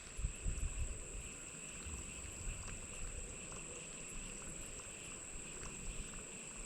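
Quiet outdoor background: a steady high-pitched whine throughout, with faint low rumbles on the microphone, mostly in the first second.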